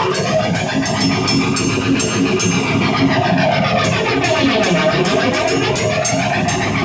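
Live band playing an instrumental passage: guitar with a slowly sweeping, rising-and-falling effect over a steady beat of sharp high ticks.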